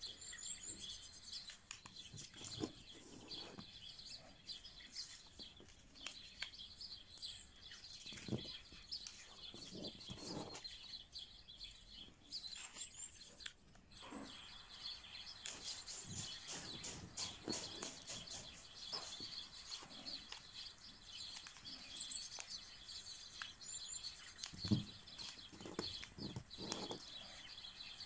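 Sheet of paper being folded and creased by hand: faint rustles, scrapes and crackles as fingers press the folds. Faint chirps, like birds, sound now and then in the background.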